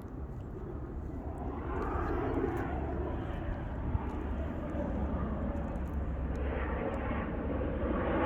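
Vehicle engine noise passing by outdoors, a broad rumble that swells about two seconds in and again near the end.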